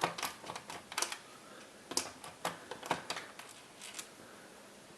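Irregular small clicks and taps of a screwdriver and fingers on a laptop's plastic case while the keyboard screw is undone.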